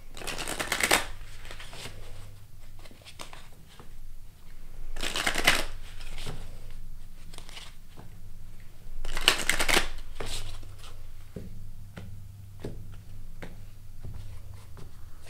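A tarot deck being riffle-shuffled three times, each riffle a brief rapid flutter of cards about four to five seconds apart, with lighter taps and clicks of the cards between and after.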